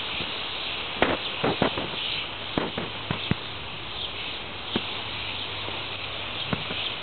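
Outdoor garden ambience: a steady high hiss with a faint low hum, broken by short clicks and knocks, most of them in the first half and one more near the end.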